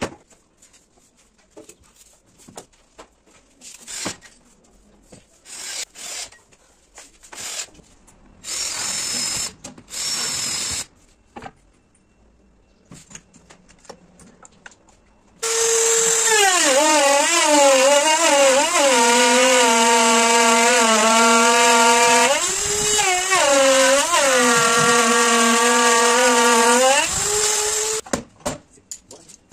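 Handheld router routing a recess in a laminated wood panel through a clamped template. It starts about halfway through with a loud high whine whose pitch dips and recovers as the bit bites, and it stops shortly before the end. Before it come scattered knocks and handling of the panel and clamp, and two short bursts of the tool running around nine and ten seconds in.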